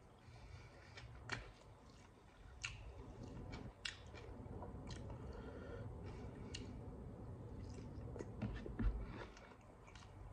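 Close-up sounds of a man chewing a mouthful of rice and fish: irregular wet smacks and clicks of the mouth.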